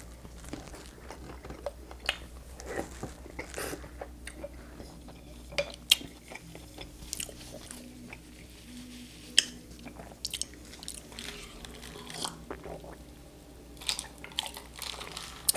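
Close-miked chewing and biting: toast crunching and soft canned pasta being eaten, with wet mouth sounds and scattered sharp clicks.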